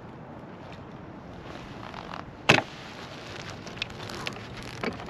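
A steady rush of background noise, with one sharp knock about two and a half seconds in and a few faint clicks after it.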